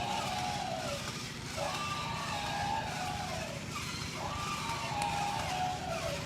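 Battery-operated toy mammoth elephant running. Its motor and gears make a steady rattly whir while its speaker repeats an electronic elephant call, a sudden rise, a held wavering tone and a falling glide, about every two and a half seconds.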